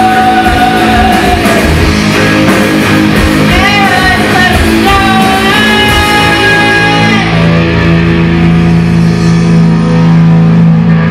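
Live rock band playing: electric guitars and drums with a melody line bending in pitch over them. About seven seconds in, the band settles onto a long held chord.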